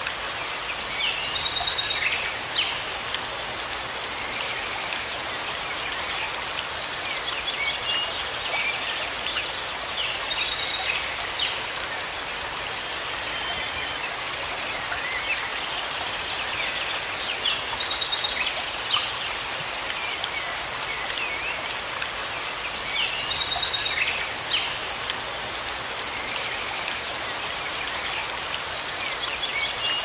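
Steady rain falling on forest leaves. A bird calls over it in short, quick-note phrases, about five times, several seconds apart.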